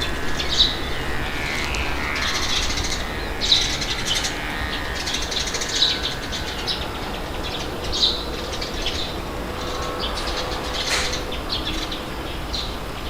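Steady low wind noise with birds chirping in short high calls every second or two.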